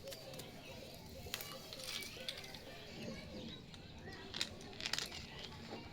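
Small plastic toy kitchen pieces being handled, giving scattered light clicks and taps, a few at a time, over faint background voices.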